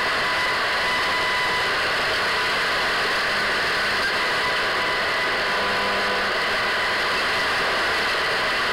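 Radio static: a steady hiss with faint, thin whistles running through it.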